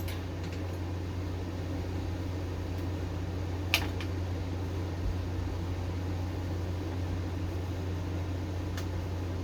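Steady low mechanical hum, like a fan, with a few sharp clicks: one at the start, one about four seconds in and a faint one near the end, as the tiller's carburetor throttle linkage is handled.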